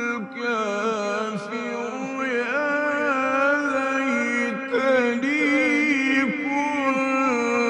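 Male Quran reciter chanting one long melismatic line in tajwid style, his voice holding high notes with quick wavering ornaments.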